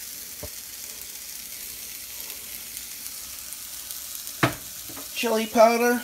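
Chicken and frozen chopped kale sizzling steadily in a hot frying pan, a light, even hiss. A sharp knock about four and a half seconds in, then a person's voice briefly near the end.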